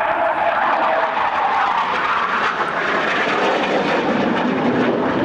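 Jet aircraft flying a display pass overhead: a steady, loud jet roar, with a high whine in the first second or so that fades into the roar.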